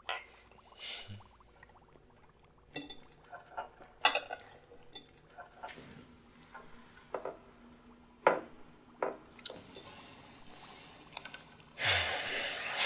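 Two drinking glasses clink together in a toast, then scattered light clinks and taps of forks and knives on dinner plates as a meal begins. A louder burst of noise lasts about a second near the end.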